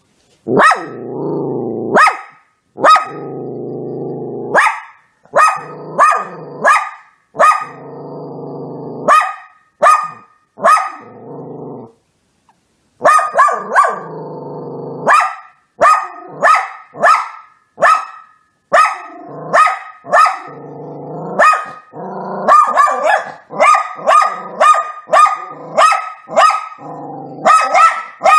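Dachshund puppy barking over and over in short, sharp barks, with low growling between them. The barks briefly stop about twelve seconds in, then come faster.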